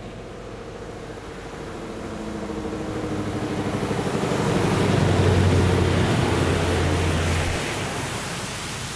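Scania R770 timber truck's V8 diesel engine as the loaded truck drives past on a gravel road: the engine sound builds as it approaches, is loudest about five seconds in, then fades as it passes.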